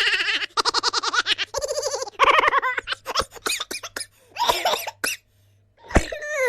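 Exaggerated human laughter: a fast run of pulsed, high-pitched cackling for the first couple of seconds, then several shorter laugh bursts separated by brief gaps.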